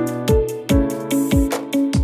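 Background music with a steady beat of deep drum hits and sharp ticks, under held keyboard notes.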